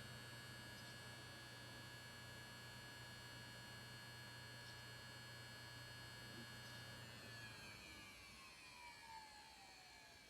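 Desktop PC giving off a constant electrical buzz: a low hum under many steady high tones. About seven seconds in the low hum stops, and the remaining tones slide down in pitch and fade.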